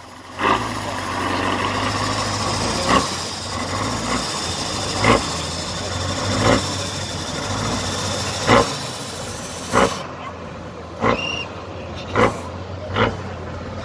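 Tatra 6x6 off-road truck's diesel engine running at low revs as the truck crawls through deep mud, with about nine sharp knocks or thumps one to two seconds apart.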